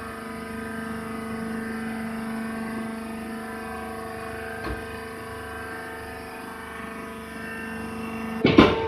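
Hydraulic baler's motor and pump humming steadily at one pitch, with a small knock about halfway and a loud metallic clank near the end.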